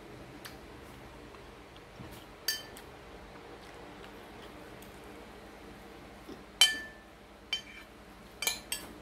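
Metal spoon clinking against a white ceramic plate of fried rice while scooping. There are about five short ringing clinks, one a third of the way in and a cluster in the last third, the loudest about two-thirds of the way through.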